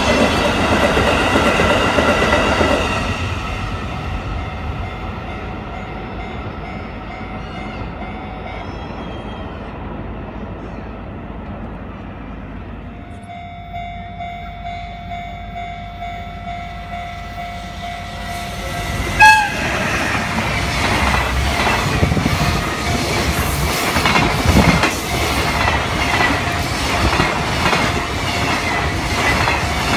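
Freight train passing on the elevated track: the tail of a train of hopper wagons rumbles by and fades in the first few seconds. Then a locomotive sounds a short, loud horn, and a container freight train rolls past with rhythmic clickety-clack of its wheels over the rail joints.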